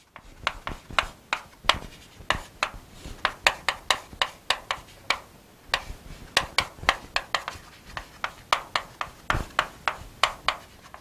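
Chalk writing on a chalkboard: a quick, irregular run of taps and short scrapes, a few a second, as words are written out.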